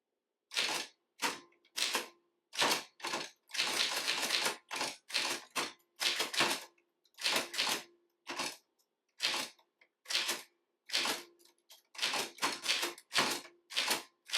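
Typewriter keys striking one at a time at an uneven typing pace, with a quick run of strokes about four seconds in.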